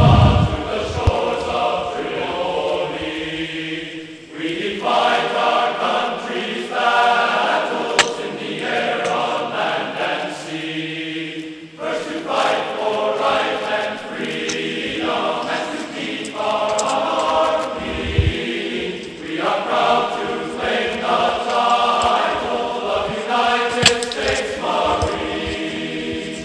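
Background music of choral, chant-like singing in long sustained phrases with short breaks between them.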